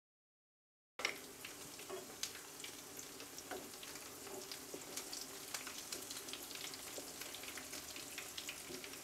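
Beef-mince chapli kebabs shallow-frying in hot oil in a nonstick pan: a steady sizzle with many scattered pops and crackles. The sound cuts in suddenly about a second in, after silence.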